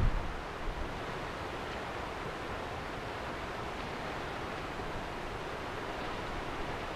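Wind buffets the microphone briefly at the start, then gives way to a steady, even rush of wind over the open lake.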